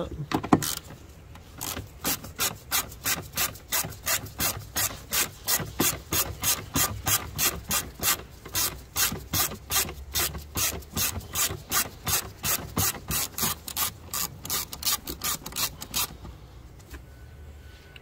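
Socket ratchet clicking in quick, even strokes, about three a second, as a bracket nut is undone. There is a single sharp knock just after the start, and the clicking stops about two seconds before the end.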